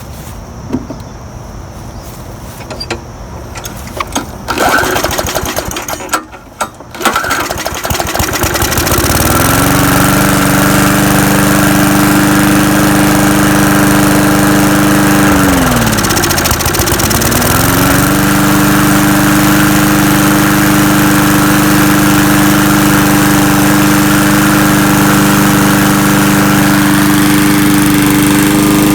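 Murray push mower's small engine starting on a pull after a few loud tugs, about seven seconds in, then running steadily at full speed. About halfway through it bogs down nearly to a stall and picks back up. It is running on fresh gas fed into the carburetor after suspected bad gas.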